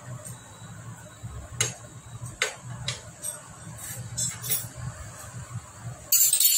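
Light metallic clicks and taps of a hand tool working on a Honda Activa scooter engine's cylinder head, half a dozen scattered ticks, with a short loud hiss near the end.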